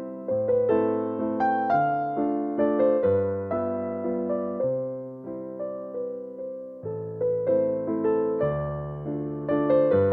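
Background music: a slow piano melody of single struck notes over changing bass notes, each note fading after it is played.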